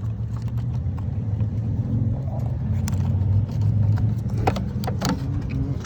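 A car engine running with a steady low hum, with a few sharp metallic clicks from tools at the battery, the loudest about four and a half to five seconds in.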